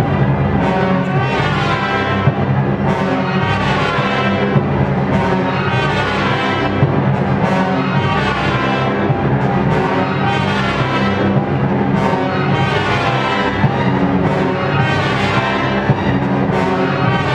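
Symphony orchestra playing loudly, full strings with brass and timpani, the timpani strokes recurring throughout.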